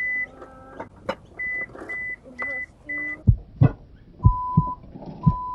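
A campervan's door-open warning beeping, the sign of a door left open: short high beeps about every half second, then lower, longer beeps. A few dull thumps come in around the middle and are louder than the beeps.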